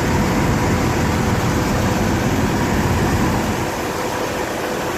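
Jeep Wrangler 4.0-litre inline-six idling steadily with a cylinder 1 misfire: the number 1 fuel injector is held open all the time by a faulty driver in the engine computer, so the engine runs rich. The sound gets a little quieter about three and a half seconds in.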